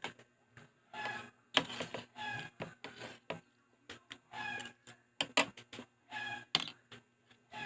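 A chicken clucking in short calls of steady pitch, repeated roughly every second, with sharp clicks in between.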